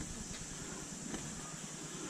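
Low, steady outdoor background hiss with a faint click about a second in.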